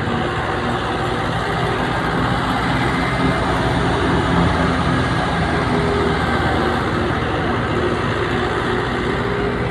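Fiat 640 tractor's diesel engine running steadily under load, driving a wheat thresher, with the thresher running along with it.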